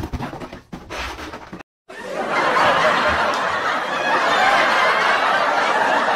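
People laughing loudly and without a break from about two seconds in. Before that comes a short, broken stretch of fainter sound that cuts off.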